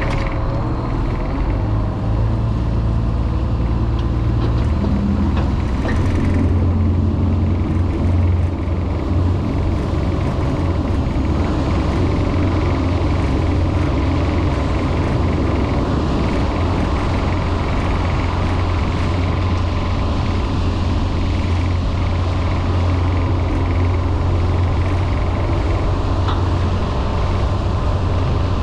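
Scallop dredger's diesel engine running steadily with a deep hum; about six seconds in the hum drops slightly in pitch and grows stronger.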